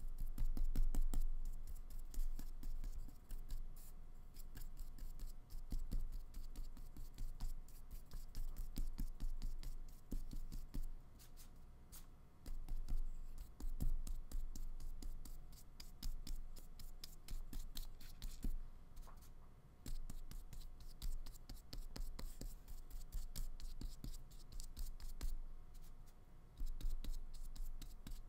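A small flat paintbrush working acrylic paint on paper, blending grey into black: soft, irregular scratching and rubbing strokes with small clicks.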